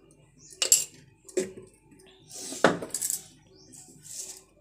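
Metal spoon clinking against a glass jar and a metal bowl while salt is scooped out and added: three sharp clinks, the first less than a second in, the loudest just under three seconds in with a brief scraping rustle around it.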